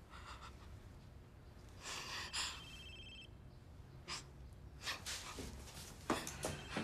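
Quiet, uneven breathing and gasps: a few separate sharp breaths, the loudest about two seconds in and another cluster near the end.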